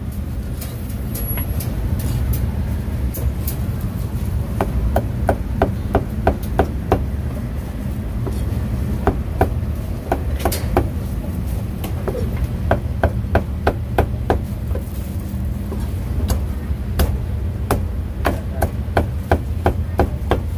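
Meat cleaver chopping braised pork on a thick round wooden chopping block: runs of quick, sharp chops separated by short pauses, over a steady low rumble.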